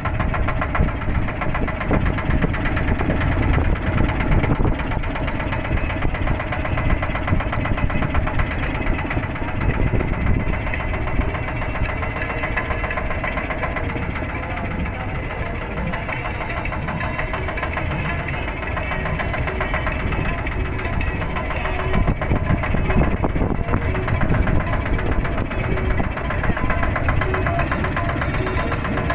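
Motorboat engine running steadily with a fast, even knocking beat.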